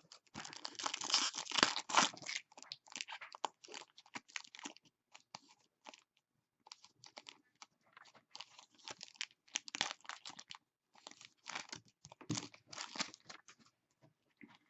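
Trading cards and packaging being handled at close range: crinkling, rustling and small clicks. The sound is densest from about half a second to two and a half seconds in, then comes in scattered bits, with thicker stretches around ten and again around twelve to thirteen seconds.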